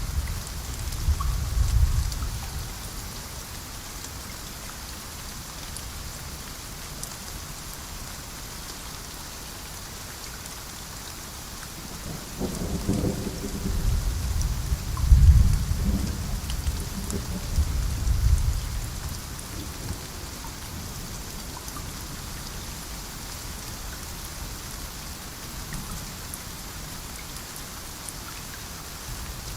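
Steady rain falling, with low rolls of thunder: one dying away in the first couple of seconds, a longer rumbling roll from about the middle lasting several seconds, and another starting right at the end.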